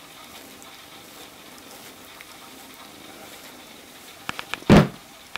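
Steady background hiss with a few small clicks, then one short loud thump near the end.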